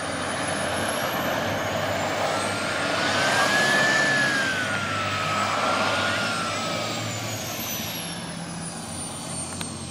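Model turboprop engine of an RC scale Embraer T-27 Tucano running on the ground, its propeller turning: a high turbine whine rises in pitch and loudness to a peak about four seconds in, then falls back toward idle as the throttle is eased off.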